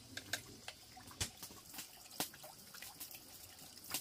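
Water dripping in separate drops and small splashes, about one a second.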